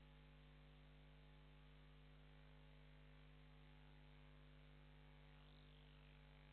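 Near silence: a faint, steady electrical mains hum with light hiss. About five seconds in there is a faint, brief whistle that rises and falls.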